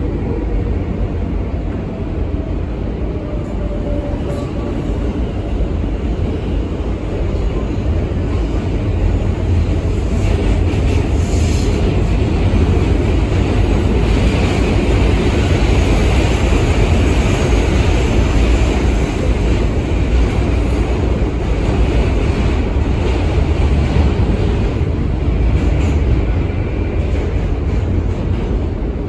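NYC subway L train car running at speed through the tunnel: a steady, loud rumble of wheels on rail and car noise that grows louder through the middle. A few brief sharp clicks cut through it.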